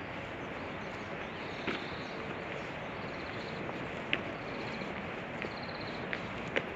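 Steady outdoor background hiss with faint, short high-pitched bird trills and a few light clicks.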